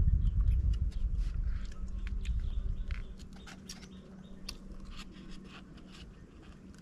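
Light crinkling and ticking of a paper or plastic sheet handled by hand, over a low rumble that fades about three seconds in.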